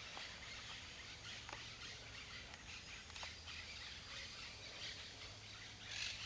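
Quiet outdoor ambience: faint scattered bird chirps over a steady hiss and a low hum.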